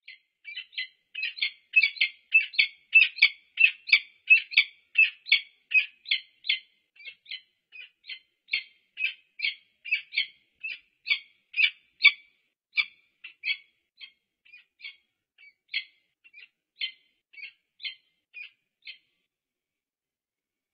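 Peregrine falcon calling a long series of short repeated notes, two to three a second at first, then coming more sparsely and fading until they stop near the end.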